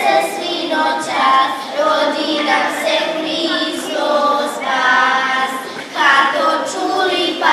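A group of children singing a traditional folk song together, with long held notes.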